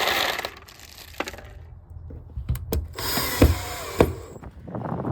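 Plastic shed panels and their fittings being handled and worked into place: scraping and rustling with several sharp knocks and clicks, the loudest about three and a half seconds in.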